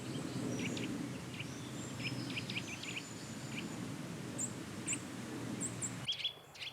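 Eurasian nuthatches giving short, sharp alarm calls again and again, mobbing a woodpecker near their nest, over a steady low background noise.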